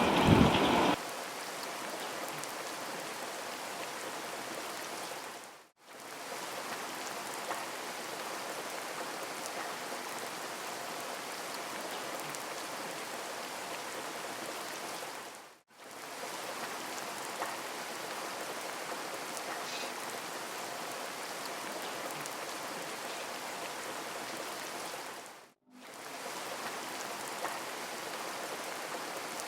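Steady, even rain-like hiss that fades out and straight back in about every ten seconds; a louder sound ends about a second in.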